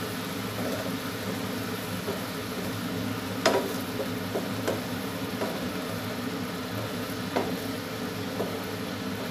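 Sautéed shrimp paste (alamang) sizzling in a frying pan as a wooden spatula stirs it, being cooked down until it dries a little. Occasional sharp knocks of the spatula against the pan, the loudest about three and a half seconds in.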